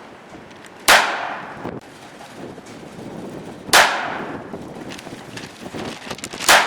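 Three shots from a North American Arms mini revolver in 17 Mach 2 rimfire, fired singly about three seconds apart, each a sharp crack with a short echoing tail.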